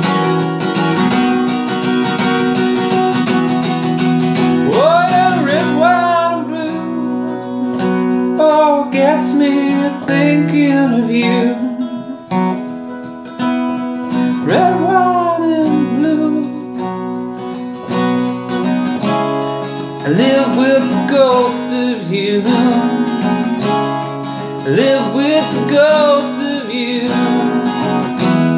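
Acoustic guitar being strummed and picked, with a wordless vocal melody, gliding and wavering, sung over it from about five seconds in.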